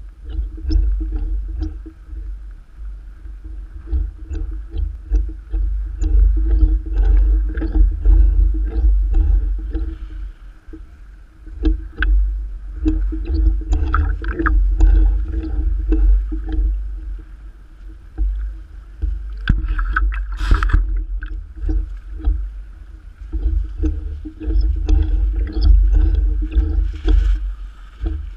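Choppy lake water slapping and splashing against a camera sitting at the waterline: a heavy low rumble that swells and fades with the waves, many small splashes and drips, and one louder splash about twenty seconds in. A faint steady hum runs underneath.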